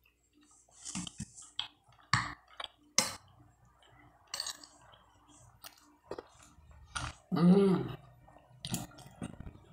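Close-up eating sounds: chewing and wet mouth clicks and smacks while eating chicken liver and rice by hand, with a brief voiced mouth sound about seven and a half seconds in.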